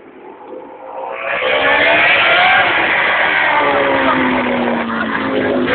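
Racing motorcycles going past at speed, several engines heard at once. They come in loud about a second in, revving with their pitch sliding and falling as they go by.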